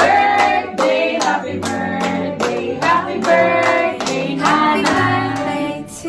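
A group of people clapping in rhythm over background music with a bass line.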